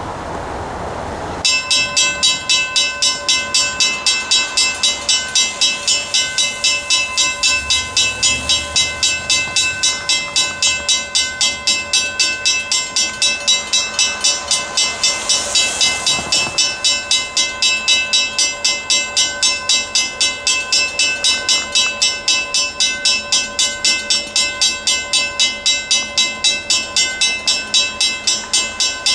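Grade crossing warning bell starts ringing about a second and a half in and keeps striking steadily, about three times a second, as a diesel locomotive pulling tank cars approaches underneath.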